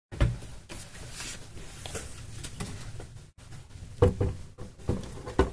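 Handling noise of cables and plug-in connectors being fitted to a controller card inside an open inverter: rustling with several short knocks, the loudest just after the start and about four seconds in.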